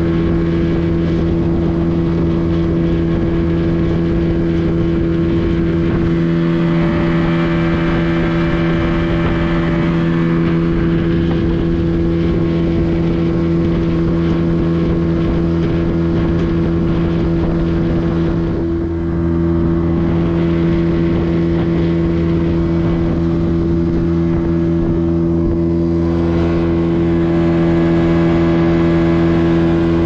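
Outboard motor driving an inflatable boat at steady cruising speed: a constant, even engine drone that eases briefly about two-thirds of the way through.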